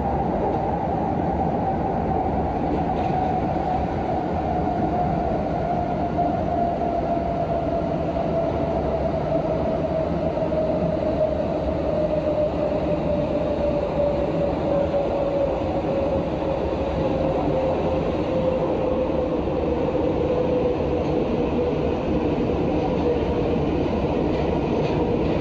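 Prague Metro train running through a tunnel, with a steady rumble of wheels on rail. Over it, the drive's whine falls slowly and evenly in pitch as the train slows.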